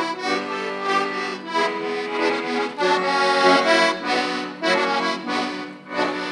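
Button accordion playing a Slovak folk tune alone, a melody over sustained chords, with no singing.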